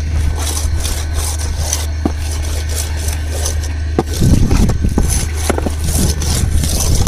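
Ladle scraping freshly roasted gram flour around and out of a kadai in quick repeated strokes, over a steady low hum.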